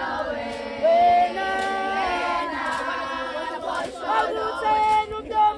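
A group of women singing a traditional Zulu song together unaccompanied, several voices holding long notes and sliding between them.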